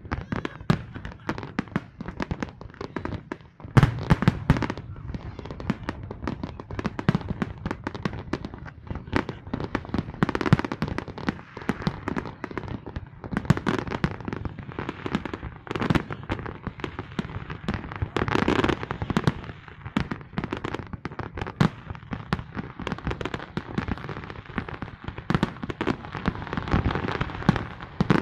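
Large fireworks display going off without pause: rapid, overlapping bangs and crackles, with heavier barrages about four seconds in, near the middle, and near the end.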